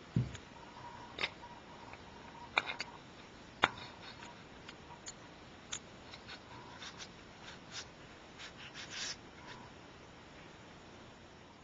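Scattered sharp clicks and light knocks at an uneven pace, opening with a dull thump, the sort of sound small hard objects make when handled and set down on a bench.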